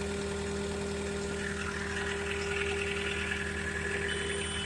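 JCB skid steer loader's diesel engine idling steadily, with a faint high-pitched tone joining about four seconds in.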